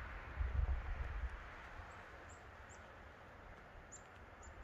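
Faint outdoor ambience: a low rumble, strongest in the first second and then quieter, over a soft hiss.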